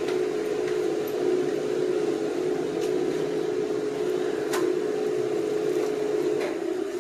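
A steady mechanical hum held at one pitch, with a few faint clicks about every two seconds.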